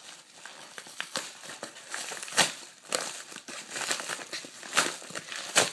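Packaging crinkling and rustling as a package is handled and opened by hand, with a few louder sharp crackles.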